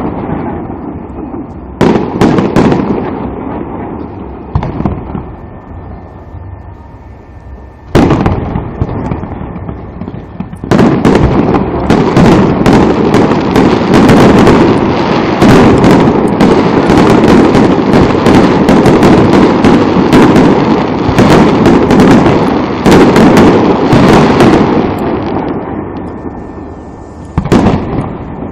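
Aerial fireworks shells bursting overhead: a handful of separate booms, each trailing off in a rumble, over the first ten seconds, then a dense barrage of rapid bangs from about eleven seconds in that keeps up for some fifteen seconds before thinning to a few last bursts.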